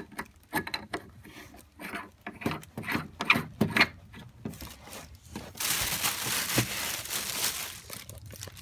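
Small clicks and scrapes of hands on the plastic water-fill cap of a water chiller's tank. About five and a half seconds in, nearly three seconds of packaging crinkling.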